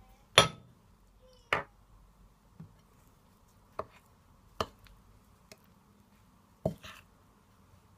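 A metal spoon clinking against the side of a bowl while stirring pancake batter ingredients: short sharp knocks at irregular intervals, about eight in all, the loudest near the start.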